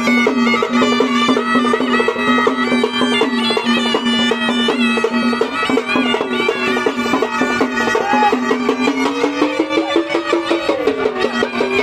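Sambal drums playing a fast, steady stick rhythm in Maharashtrian folk music. With them, a melody instrument holds one steady note, then slides up and down in a phrase from about eight seconds in.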